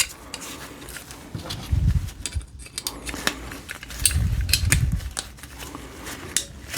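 Small metal clicks and scrapes as the steel rule of a combination square is pushed and worked into its head, with a couple of dull handling thumps about two and four seconds in.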